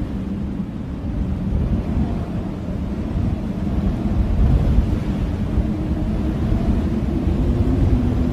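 Blizzard wind blowing hard in a steady low rush, with a faint wavering howl over it.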